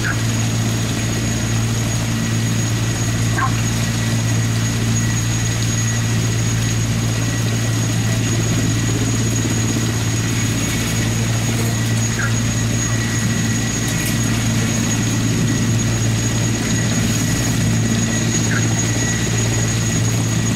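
Military helicopters running on the ground with engines started and rotors turning. It is a loud, steady low drone under a constant high turbine whine.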